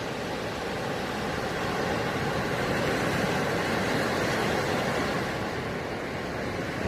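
Sea waves washing up a shell-strewn beach: a continuous rushing surf that swells and eases slightly.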